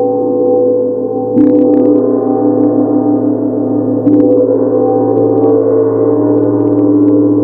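Large Tibetan gong struck with a soft mallet, twice: about a second and a half in and again about four seconds in. Each stroke swells its low, many-toned ring, which carries on between strokes.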